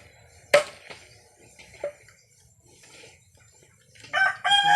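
A cleaver chopping chicken on a board: one sharp chop about half a second in and a fainter knock a little later. Near the end a rooster starts to crow loudly.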